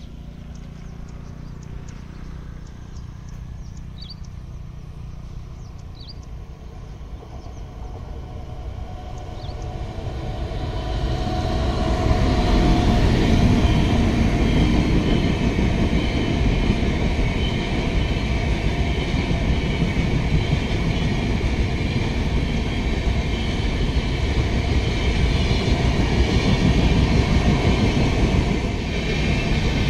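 WAP-7 electric-hauled passenger train with LHB coaches approaching and passing at speed. A distant rumble grows from about eight seconds in into a loud, steady rumble and rattle of the coaches running over the rails.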